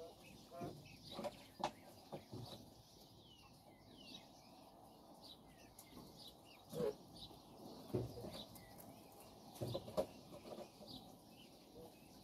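Japanese quail making soft, high chirping calls throughout, with a few brief low thumps and rustles as the birds move about and fluff their feathers.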